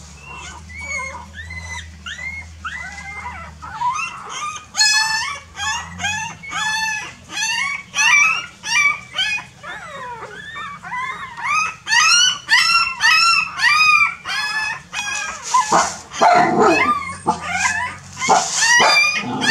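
A litter of young puppies whimpering and yelping, a rapid stream of short, high, overlapping cries that grows louder a few seconds in, with a couple of harsher, louder cries near the end.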